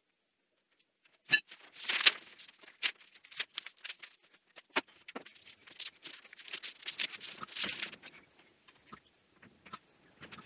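Handling noise from a glue-up of mahogany boards: sharp knocks and clicks as the boards are set down and moved, with paper sheets rustling and crinkling under them. It starts after about a second of silence, with the loudest knocks in the first few seconds.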